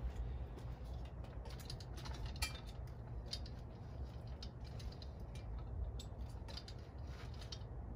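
Light metallic clicks and rattles from a homemade steel drill-press and angle-grinder stand as its lever arm is pulled down and raised on its pivots and return springs, over a steady low rumble.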